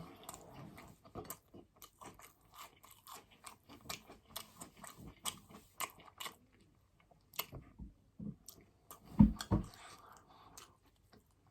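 A person chewing food close to the microphone, with crunching and many small wet mouth clicks. Two low thumps come close together about nine seconds in.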